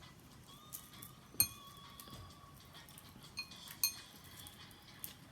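Tableware clinking during a meal: a few sharp, ringing clinks, the loudest about a second and a half in, then three more spaced through the rest.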